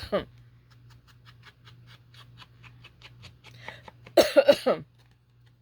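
A woman coughing in a short, loud fit about four seconds in, over a faint steady low hum and light quick ticking.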